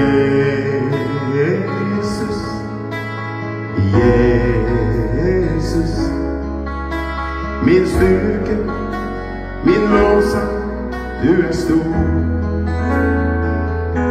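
A man singing a Norwegian worship song, accompanying himself on an electronic keyboard with sustained chords and a bass note that changes about every two seconds.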